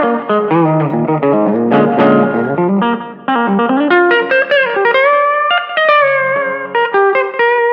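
Headless electric guitar with 13-gauge strings, played through a Fly Rig with reverb and delay into a Fender Rumble 15 amp fitted with a guitar speaker. It plays a run of quick single notes with small bends, then longer held notes bent and shaken with vibrato in the second half.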